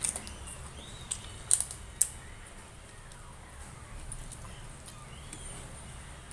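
Crisp papad crunching between the teeth: a few sharp cracks in the first two seconds, the loudest about a second and a half and two seconds in. After that come only soft sounds of eating by hand.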